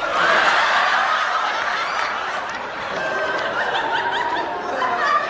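Studio audience laughing at a punchline: a sustained wave of crowd laughter that starts abruptly, is loudest at first and eases a little.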